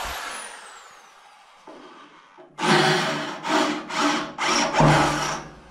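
Electric drill: a falling whine as it winds down at the start, then about two and a half seconds in it runs in about five short bursts, drilling with a small bit.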